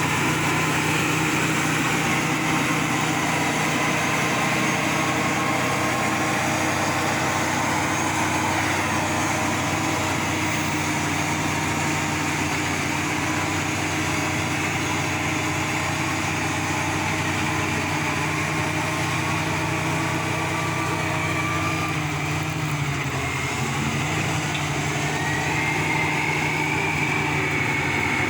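An engine running steadily, with a thin whine that rises in pitch a few seconds before the end.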